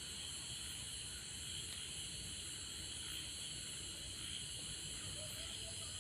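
Faint, steady, high-pitched background hiss with no tool or engine sounds.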